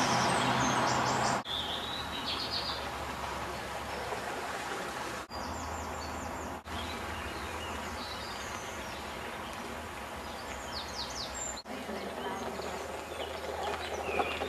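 Outdoor ambience of small birds chirping now and then over a steady hiss of background noise and a low hum. The sound breaks off briefly several times.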